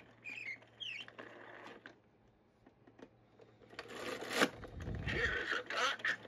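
Mattel See 'n Say Farmer Says toy having its lever pulled about four seconds in: a low thud, then a clattering, clicking run from the plastic mechanism as the pointer spins. Before that, only a few faint clicks and handling sounds.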